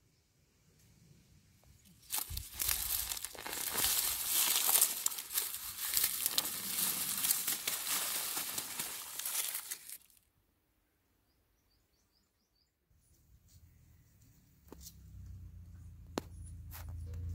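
Onions pulled by hand out of dry soil: the dry leaves and roots rustle and tear in a dense crackle that lasts several seconds and cuts off suddenly. After a short silence comes a low rumble, with a couple of sharp knocks near the end.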